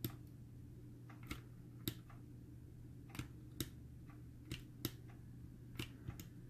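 Faint sharp clicks, about nine, several in pairs a few tenths of a second apart, from the fire button of a Coil Master ohm reader being pressed and released to pulse freshly built parallel coils, with a low steady hum underneath.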